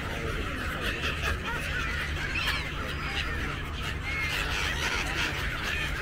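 A flock of gulls calling all at once, many short squealing cries overlapping, over a steady low rumble.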